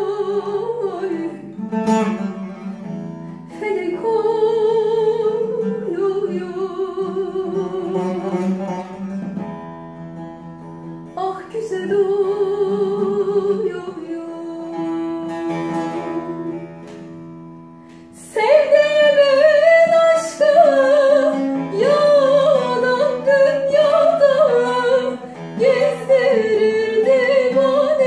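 Bağlama (long-necked Turkish saz) played with a woman singing a Turkish folk song. After a brief dip about two-thirds of the way in, the singing comes in louder, with a wavering, ornamented line.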